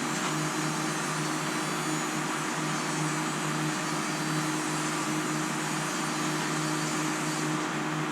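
Steady whirring hum of a running fan-type machine, an even hiss with a low steady drone that does not change.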